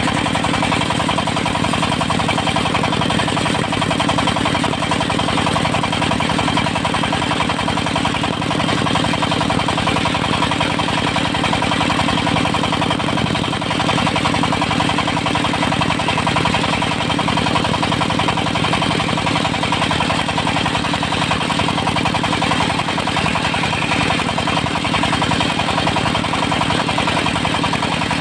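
The engine of a mobile circular sawmill runs at a steady speed, driving the saw blade, with no breaks or changes in pitch.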